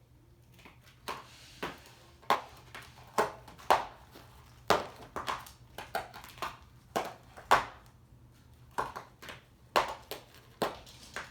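A series of sharp, irregular clicks and knocks, about two a second, starting about a second in and stopping just before the end.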